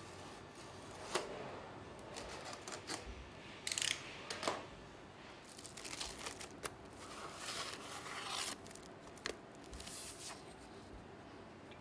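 Paper and plastic packaging rustling and tearing as a new cylinder head gasket is slid out of its sleeve, with irregular light clicks and scrapes from the thin metal gasket being handled. The rustling comes in several short bouts, the longest from about six to eight and a half seconds in.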